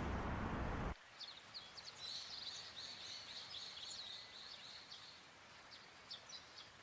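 A car's passing rush fading down the road, cut off abruptly about a second in. Then faint birdsong follows: small birds giving short high chirps and a trill.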